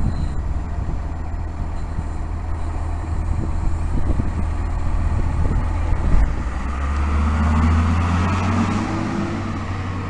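Cummins ISC diesel engine of a 2002 Blue Bird CS transit bus running as the bus pulls away and passes close by, growing louder from about the middle as it goes past. There is a brief knock about six seconds in.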